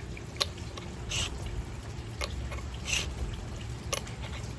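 Three-blade broadhead pushed flat across a sharpening stone: two short scraping strokes about two seconds apart, with light clicks in between as the head is flipped and set back down on the stone.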